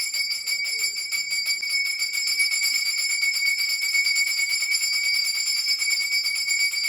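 Puja hand bell rung fast and continuously during worship, a steady high ringing made of rapid, even strokes.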